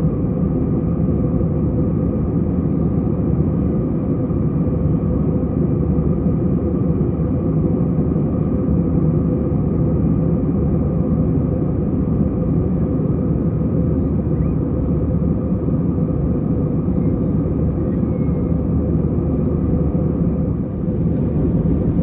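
Jet airliner cabin noise in flight: a loud, even rumble of engines and airflow with a steady hum of a few tones on top.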